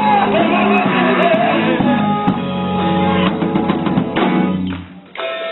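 Live gospel band playing, with electric guitar, drums and sustained chords; a gliding vocal line is heard in the first second or two. Near the end the sound briefly drops out, then comes back.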